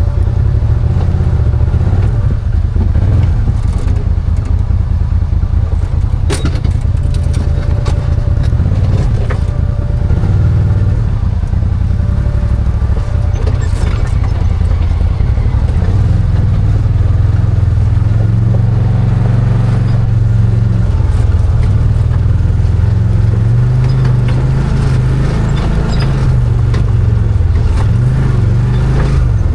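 Arctic Cat Wildcat 1000 side-by-side's V-twin engine running steadily under way, loud and low, with scattered sharp clicks and knocks.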